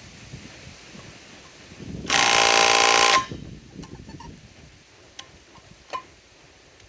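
Kobalt subcompact cordless impact wrench hammering in one loud burst of about a second, breaking loose a fifth-wheel trailer lug nut that had not been loosened in over ten years. A few faint clicks follow.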